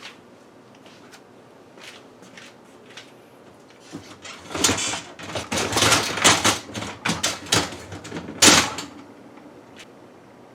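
Dishwasher rack being handled and slid on its rails: a few light clicks, then about five seconds of clattering and scraping knocks, the loudest one near the end.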